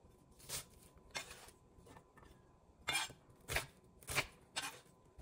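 Chef's knife dicing an onion on a wooden cutting board: about six separate chops, with a pause of a second or so in the middle.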